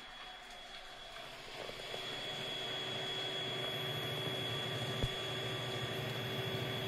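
Cooling fans of an opened-up, running DLP projector whirring steadily, with a steady high whine over the noise; it grows a little louder in the first two seconds. One small click about five seconds in.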